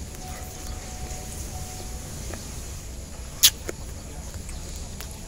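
A mouthful of raw guava being chewed, with one sharp crunch about three and a half seconds in and a smaller one just after, over a steady low rumble.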